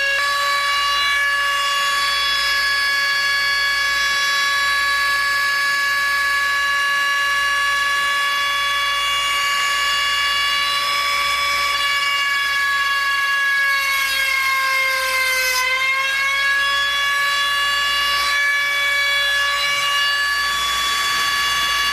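Dremel rotary tool with a small cut-off wheel running at high speed, a steady high whine, grinding a slot into a stripped Phillips screw head so that a flathead screwdriver can turn it out. About three-quarters of the way through, its pitch sags briefly and then recovers.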